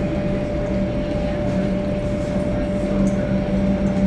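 Steady cabin noise inside a Boeing 737-800 airliner, with a constant engine hum holding one tone over a low rumble.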